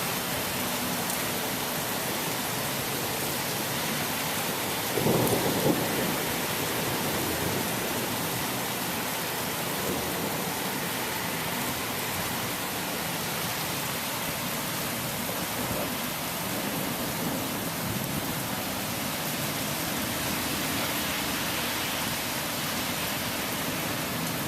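Steady rain falling in a thunderstorm, easing off from heavier rain. About five seconds in, a short, louder low rumble of thunder.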